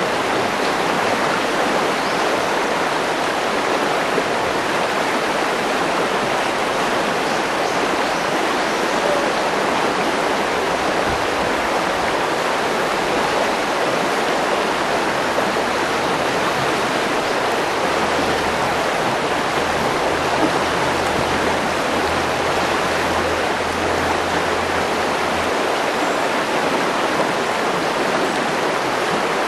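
Steady, even rushing of a mountain river.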